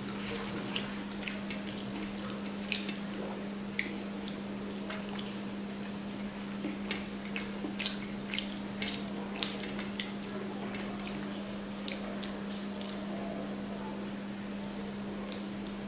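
Wet chewing and lip-smacking from someone eating rice and curry by hand, in scattered short clicks that are busiest in the first half, over a steady low hum.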